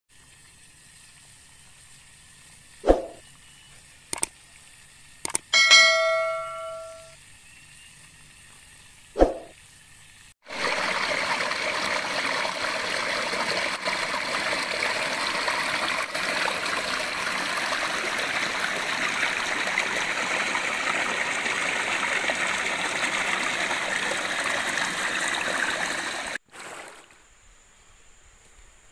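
Faint background hiss with a few sharp clicks and one ringing, bell-like tone that dies away over about a second. About ten seconds in, a loud, steady rush of water starts abruptly, runs for about sixteen seconds and cuts off suddenly.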